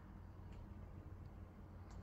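Near silence: room tone with a faint steady low hum and a few faint clicks.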